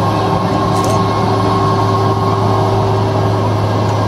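Steady mechanical drone: a strong low hum with a couple of held higher tones over a constant rushing noise, with no change in pitch or level.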